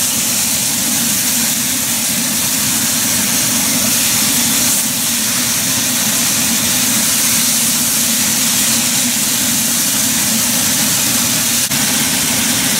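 Chicken pieces frying in a hot nonstick pan on a gas burner, a steady sizzle as they are stirred with a wooden spatula, over a steady low hum.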